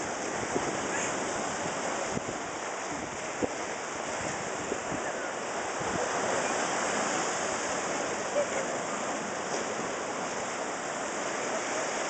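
Ocean surf breaking and washing against a seawall: a steady rush of water.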